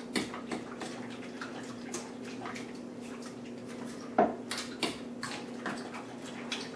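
A thick, wet mixture of cream cheese, chicken broth, ham and shredded cheddar being stirred in a bowl, making a run of small squishes and clicks. There is a louder knock about four seconds in, over a steady low hum.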